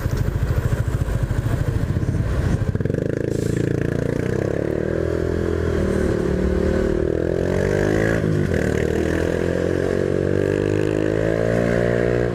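Honda Biz 125's single-cylinder engine pulling away from low revs and accelerating, its pitch climbing, with a drop for a gear change about eight seconds in and another near the end.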